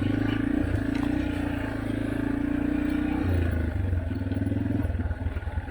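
Yamaha dirt bike engine running at a steady pitch, then easing off to a lower, choppier putter about three seconds in.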